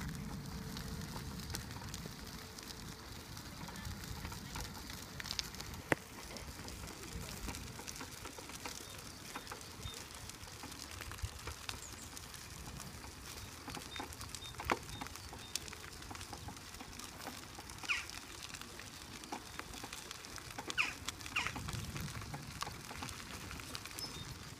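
A powered wheelchair rolls along a gravel path, its tyres crackling quietly over the grit under a low steady rumble. A few short bird chirps come near the end.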